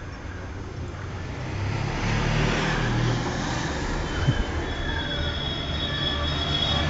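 Police motorcycle engines growing steadily louder as the motorbikes approach along the road. About four seconds in, a steady high whine joins the engine noise.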